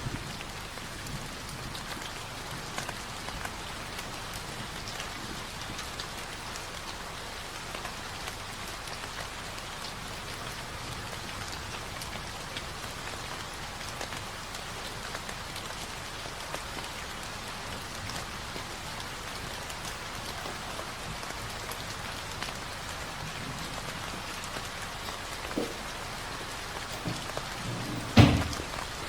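Steady rain falling on a surface, an even patter of drops, with a single sharp thump near the end.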